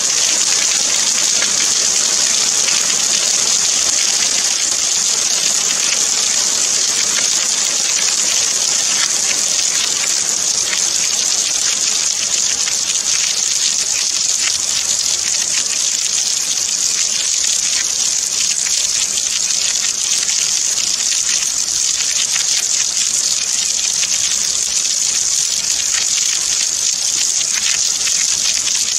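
Steady rain: an even, dense hiss of falling drops that neither swells nor eases.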